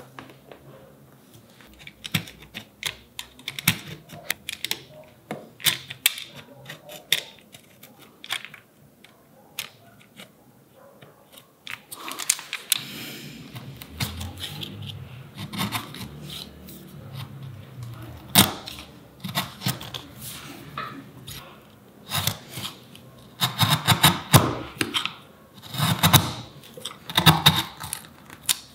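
Steel chisel chopping and paring into a beech block: a run of sharp clicks and taps, a stretch of scraping in the middle, and a cluster of louder knocks near the end.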